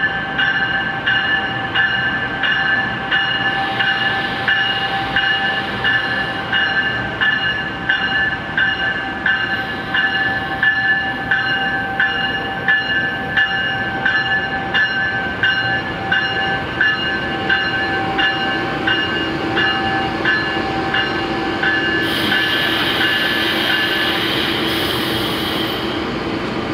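Bell of an Amtrak ACS-64 electric locomotive ringing with steady, evenly spaced strokes as the train stands at the platform. It stops near the end, while a burst of air hisses.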